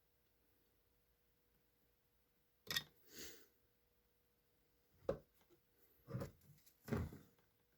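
A few sharp clicks and knocks of small parts and tools being handled during chainsaw fuel-line work, about five in all, with a short scrape right after the first.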